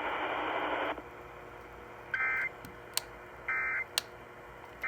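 Radio hiss for about a second, then the Emergency Alert System end-of-message data bursts: short, harsh two-tone digital warbles, twice about a second and a half apart, with a third starting at the very end. They signal that the alert message is over.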